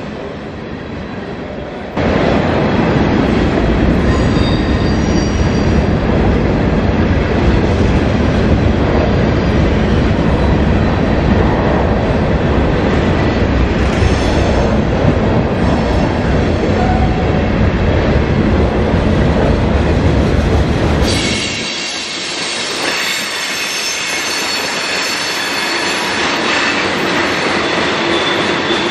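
Freight cars of a mixed freight train rolling past at trackside, covered hoppers and then tank cars. After a quieter opening, a loud, heavy rumble of wheels on rail sets in suddenly about two seconds in. About two-thirds of the way through it gives way to a lighter rolling sound with high-pitched wheel squeal on top.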